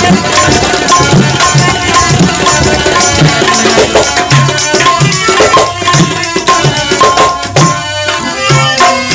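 Instrumental folk-music interlude: a tabla plays a steady rhythm under a held melody line, with no singing.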